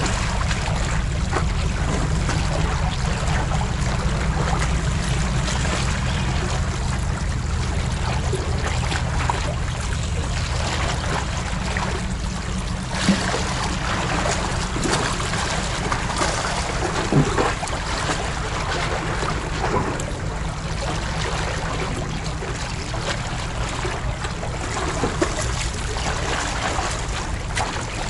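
Sea water washing against a tetrapod breakwater, with a steady low rumble underneath and a few brief knocks about halfway through and again a few seconds later.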